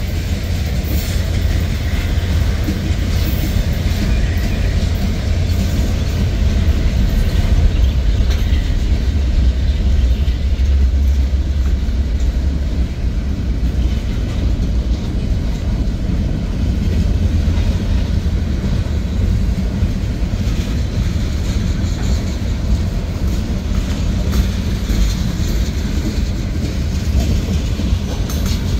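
Freight cars of a passing CSX manifest train rolling by: a steady rumble of steel wheels on the rails, with occasional clicks from the wheels.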